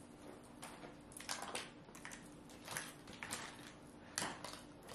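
Faint scattered taps and rustles, about six in all, over a low steady hum.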